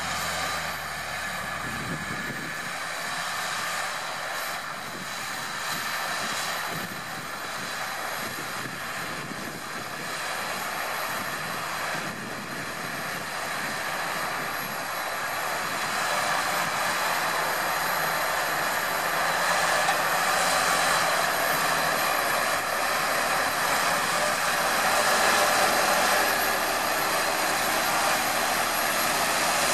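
Tractor running steadily while pulling a ground-breaking implement, growing louder about halfway through.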